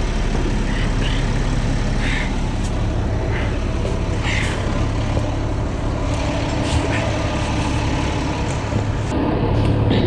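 Fire truck's diesel engine running steadily with a low hum.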